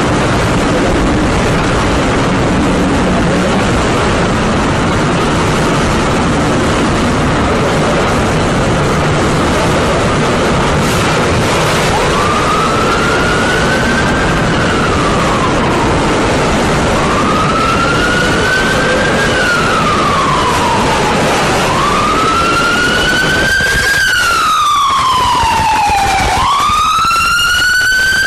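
An emergency siren wailing, slowly rising and falling in pitch about every four to five seconds. It comes in about halfway through and grows louder, over a loud, steady rushing noise.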